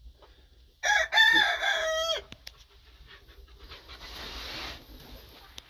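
A rooster crows once, about a second in: a single high call lasting about a second and a half that wavers and then holds its note before cutting off. Later comes a brief rustling hiss and a few faint clicks.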